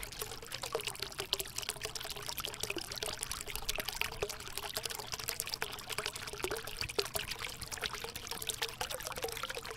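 Water pouring steadily from a two-litre plastic pop bottle into a plastic bucket, a continuous splashing stream.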